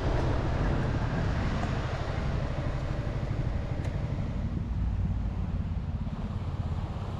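Steady rumble of wind on the microphone of a Honda Forza 350 scooter being ridden, with the scooter's running and road noise underneath.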